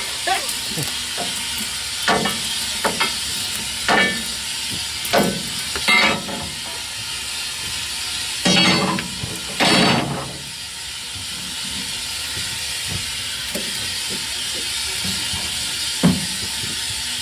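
Steam locomotive firebox being raked: a long fire iron scrapes and clanks against the grate and coal about ten times in the first ten seconds, the loudest strokes near the end of that run, over the boiler's steady steam hiss. The scraping then stops, the hiss goes on, and there is one sharp clank near the end.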